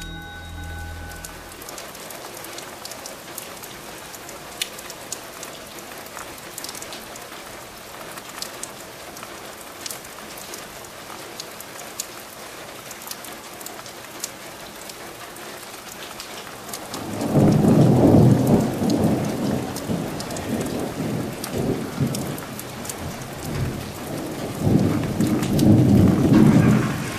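Steady rain with scattered sharp drop ticks, then two long rolls of thunder, one starting about two-thirds of the way in and the second near the end. The thunder is the loudest sound.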